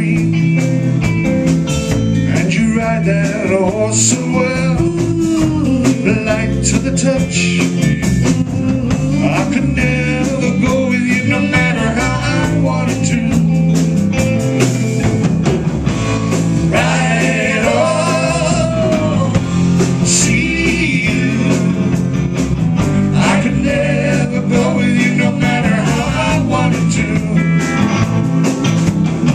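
Live blues band playing: singing over guitar, bass guitar and a drum kit, at a steady loud level.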